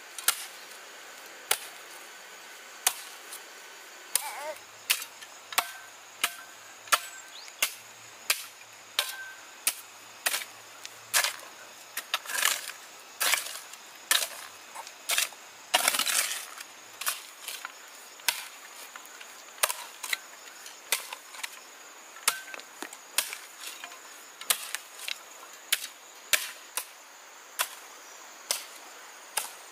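A hand tool striking again and again: a steady run of sharp chopping strikes, about one a second. Some strikes come quicker and louder in the middle.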